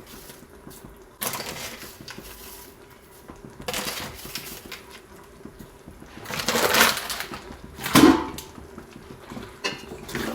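A metal spoon scraping and knocking in a cooking pot as the masala is stirred after salt is added: several separate scrapes and clanks, the loudest about eight seconds in.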